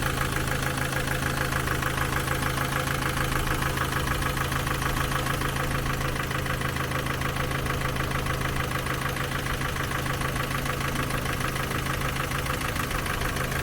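Ford Focus 2 engine idling steadily with a light, even valve clatter. The clatter comes from valves still out of tolerance, which could not be set right without taking off the cylinder head.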